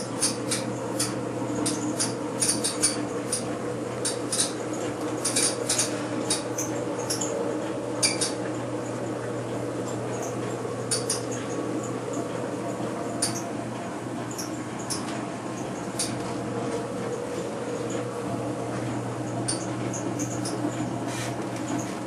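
Steady electric hum of a Bryant Plus 90i gas furnace running, with many short, irregular high-pitched squeaks or chirps over it, most frequent in the first third.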